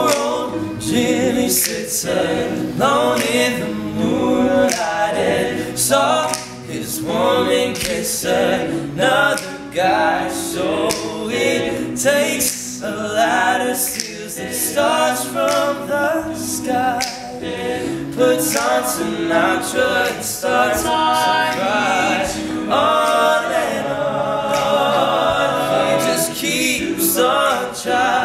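All-male a cappella group singing in close harmony, with a steady clicking beat kept throughout.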